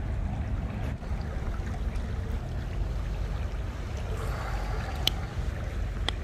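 Small mountain creek running over rocks: a steady rushing with a low rumble. Two short, sharp ticks about five and six seconds in.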